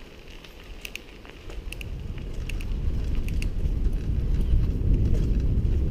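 Bicycle rolling along a dirt trail: light scattered clicks and rattles from the tyres and bike, then a low rumble of tyre and wind noise that builds from about two seconds in as the bike picks up speed.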